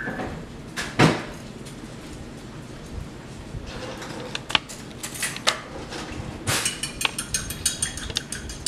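Two sharp knocks near the start, eggs being cracked on the rim of a bowl, then from about six and a half seconds in eggs being beaten in a bowl, a fast run of light clicks as the utensil strikes the side.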